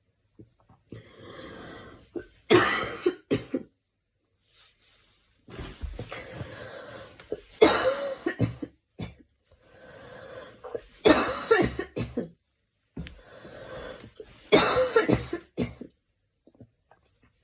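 A girl coughing in four fits, each a quick run of sharp coughs, with a softer, drawn-out breath before each fit.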